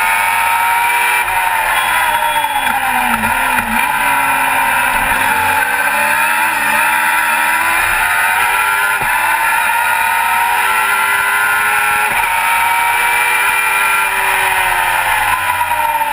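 Racing car engine heard from the open cockpit at speed, its note falling sharply about three seconds in, then climbing and dropping several times through the gears and falling again near the end, over loud wind rush.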